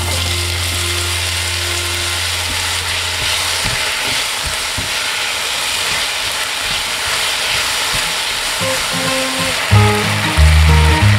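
Diced apples sizzling in a frying pan of hot butter and sugar as they are stirred with a spatula, a steady frying hiss. Background music with deep bass notes comes in loudly near the end.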